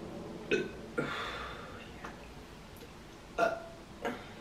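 A woman burping: four short burps, the second trailing off for about a second.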